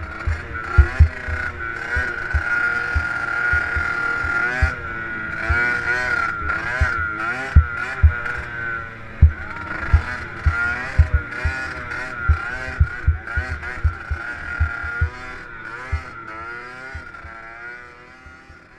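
Small dirt bike engine revving up and down again and again as it is ridden around a motocross track, with frequent low thumps throughout. The sound fades away over the last few seconds.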